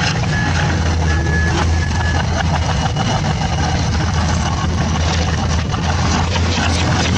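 An engine running steadily with a deep, even drone and rattling clicks over it. Three short high beeps sound in the first two seconds.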